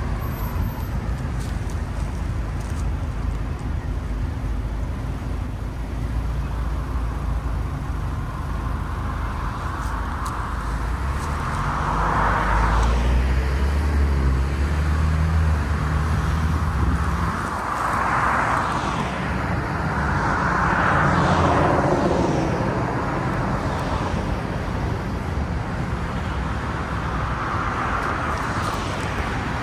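Road traffic: several cars passing one after another, their tyre noise swelling and fading in turn, over a steady low rumble that grows heavier for a few seconds midway.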